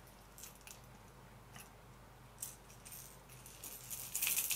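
Light clicks and rattles of hard fishing lures and their hooks being handled, scattered at first and with a louder run of clicks near the end.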